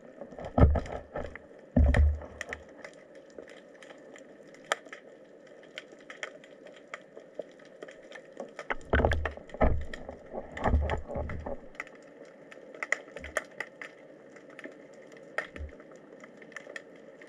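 Underwater sound picked up by a submerged camera: scattered sharp clicks and crackles over a steady hiss, with heavy low thumps about half a second in, around two seconds, and several more between nine and eleven seconds.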